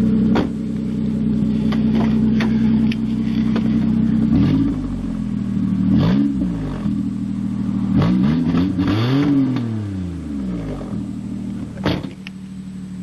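1998 Nissan Pathfinder's V6 running with no exhaust beyond the headers, idling, then revved in four short blips from about four seconds in, the last the highest and longest, before dropping back to idle.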